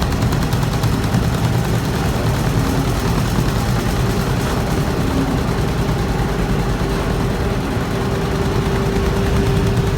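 Industrial carpet-beating machine (Emasan EHC240) running: a dense, fast rattle of beating strikes over a steady motor hum.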